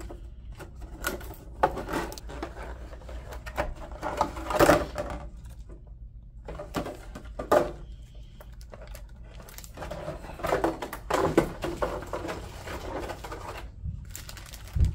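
Clear plastic packaging crinkling and rustling as a toy train locomotive is worked out of its plastic clamshell and bag, in irregular crackling spells. A dull thump comes near the end.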